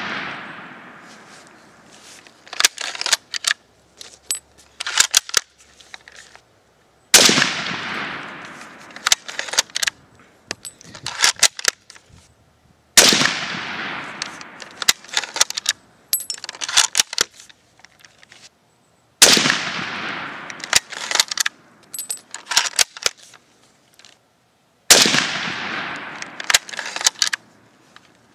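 Gewehr 98 bolt-action rifle in 8mm Mauser (7.92×57) firing four shots about six seconds apart, each a sharp report with a ringing tail of a couple of seconds. Between the shots come quick clusters of metallic clicks and clacks as the bolt is worked to eject the case and chamber the next round.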